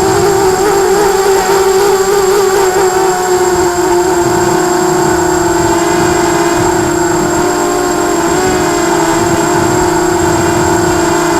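Quadcopter's electric motors and propellers whining at a steady pitch, wavering a little in the first few seconds and then holding even.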